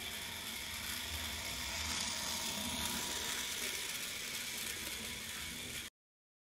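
Battery-powered toy train's motor and gears whirring steadily as it runs along plastic track, cutting off suddenly near the end.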